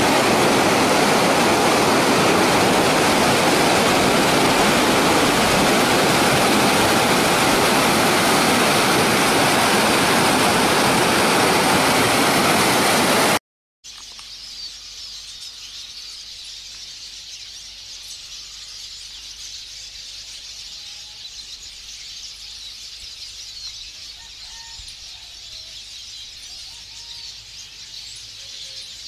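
Loud, steady rushing noise for about the first half, cutting off suddenly. After a brief gap comes a much quieter outdoor hiss with scattered faint bird chirps.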